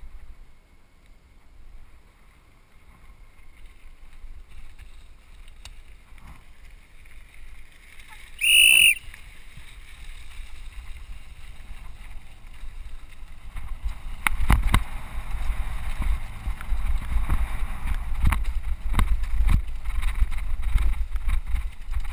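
Mountain bike riding over a rough dirt and gravel trail, heard from a helmet camera: low rolling rumble and knocks from bumps, growing louder as the bike speeds up in the second half. A little before halfway, a short, loud, high-pitched squeal.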